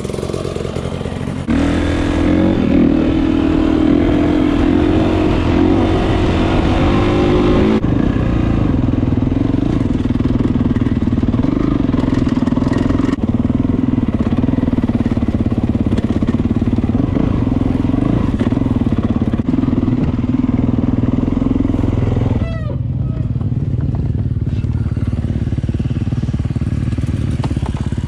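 Dirt bike engine running as the bike is ridden across rough ground. The engine note rises about a second and a half in, drops to a lower, wavering pitch near eight seconds, and eases off around twenty-two seconds in.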